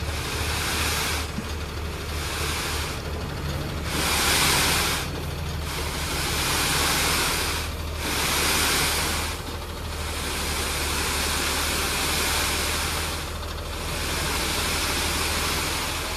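Sand pouring and sliding off a dump truck's raised tipper body, a continuous rushing hiss that swells and eases every second or two, over the steady low running of the truck's diesel engine.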